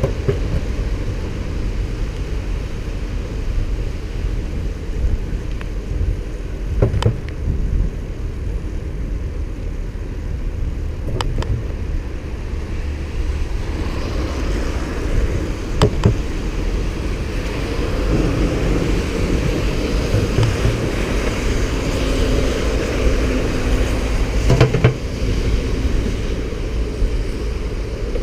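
Wind rushing over the microphone and road noise from a moving road bicycle, with a few sharp knocks as the bike hits bumps. A louder rush of noise swells through the second half.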